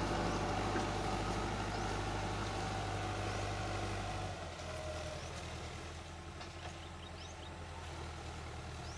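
Iseki 7020A tractor's diesel engine running steadily as it pulls a disc harrow through the soil, growing fainter as it moves away; about four seconds in its low hum drops slightly in pitch.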